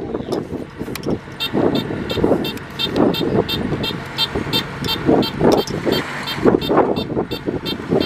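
Kubota DC-105X combine harvester running, with a rapid electronic warning beep that starts about a second and a half in and repeats about four times a second, over wind buffeting the microphone.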